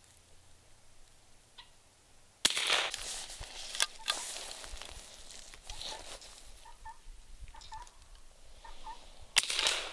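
Two sharp cracks of a .22 rifle shot about seven seconds apart: an old Winchester .22 firing at tin cans. After the first shot come a couple of quick metallic clicks as the rifle's action is worked.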